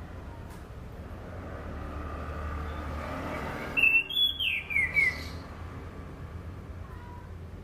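Anis cendana thrush singing one short phrase of clear whistled notes that step down in pitch, about four seconds in, over a steady low hum.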